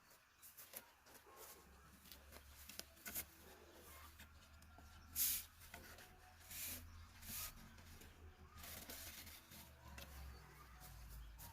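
Faint scattered rustling and light clicks of something being handled, with a louder brief scraping hiss about five seconds in, over a low steady hum.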